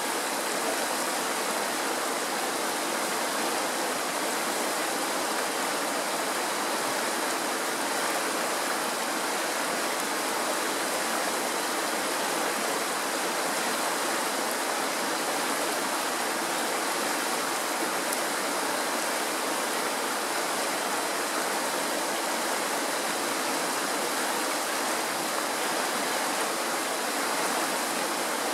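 Mountain stream rushing over rocks in shallow white-water riffles: a steady, unbroken wash of water noise.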